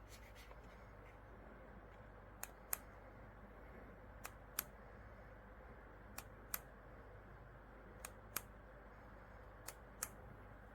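Sharp double clicks repeating at an even pace, five pairs about two seconds apart with the two clicks of each pair a third of a second apart, over a faint steady hum.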